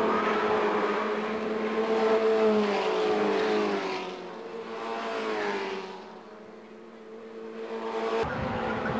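Several Formula Ford single-seater racing cars driving hard through a bend, their engine notes falling in pitch as they pass and fade away. The sound is quietest about six to seven seconds in, then swells again as another car approaches near the end.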